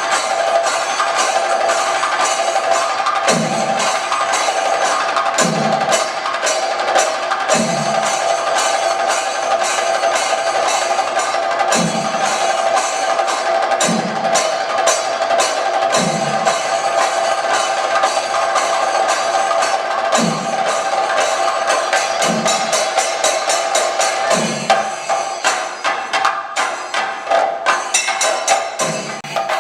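Thayambaka on chenda drums: rapid stick strokes over a steady ringing of ilathalam cymbals, with a deep accented drum stroke about every two seconds. Near the end the rolling strokes break into separate, spaced accents.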